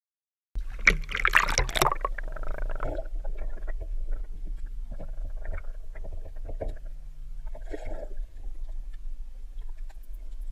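Muffled underwater sound picked up by a submerged camera: a steady low rumble with scattered gurgling and knocks. A louder burst of splashing about a second in.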